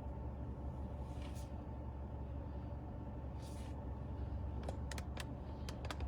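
Steady low hum of background noise, with a couple of brief soft rustles and a run of small sharp clicks near the end.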